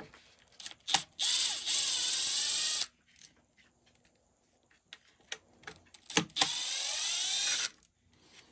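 Electric power screwdriver running twice, each run about a second and a half, backing out two screws; its motor pitch dips and bends under load. Small clicks of handling between the runs.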